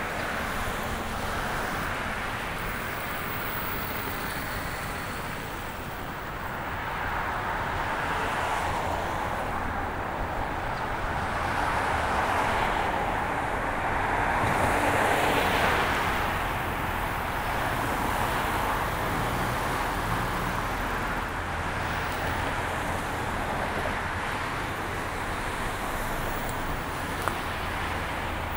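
City road traffic noise: a steady wash of cars passing, swelling about halfway through.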